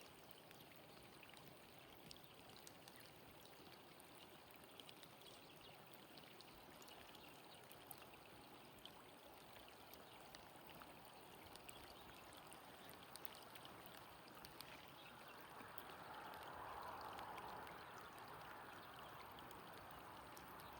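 Faint, steady rush of running water with scattered small drips, briefly louder for a couple of seconds near the end.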